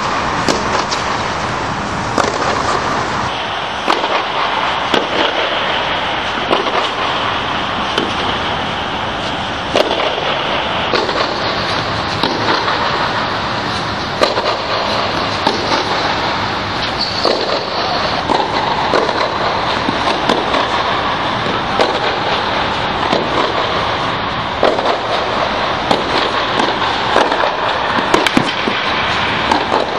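Tennis balls being hit and bouncing in a rally on an indoor hard court: sharp, irregularly spaced pops over a steady hiss.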